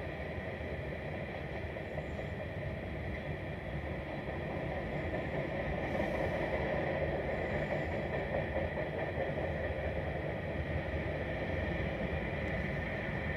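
Freight cars of a CSX freight train, tank cars among them, rolling past on the rails: a steady rumble of wheels on track, a little louder from about five seconds in.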